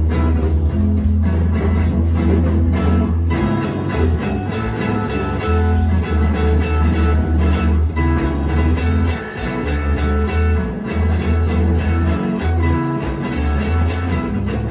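Live jam on an amplified electric guitar, with deep low notes changing underneath throughout.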